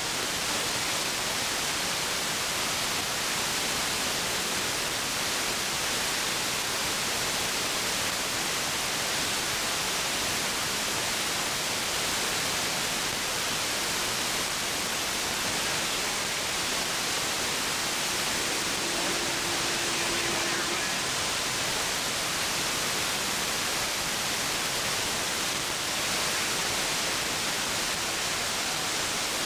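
Steady hiss of static from a CB radio receiver on the 11-metre band (27.285 MHz), with no station coming through. A faint short tone rises out of the hiss about two-thirds of the way in.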